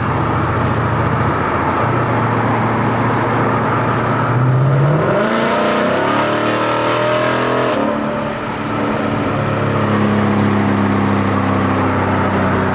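2018 Ford Mustang GT's 5.0 L Coyote V8 running through open exhaust dumps with no mufflers: a loud, drony exhaust note. The revs climb around the middle, dip briefly about eight seconds in, then settle into a steady drone.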